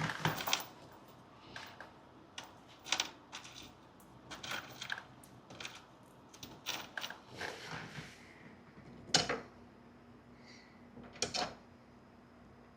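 Irregular clicks, knocks and rustles of hand work: the speaker, its wiring connectors and small screws being handled and fitted. The loudest knocks come about nine and about eleven seconds in.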